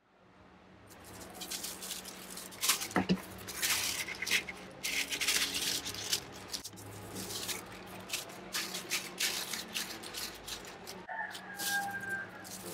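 White tissue paper rustling and crinkling in irregular bursts as it is folded and smoothed inside a cardboard box, over a faint steady hum. Background music comes in near the end.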